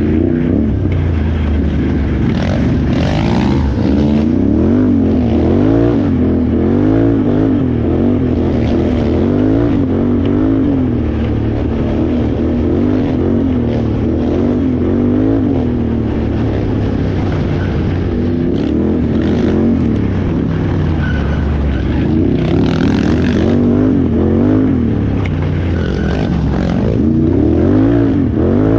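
Can-Am Renegade XXC 1000R ATV's V-twin engine being raced over an off-road course, revving up and down over and over, its pitch rising and falling about once a second.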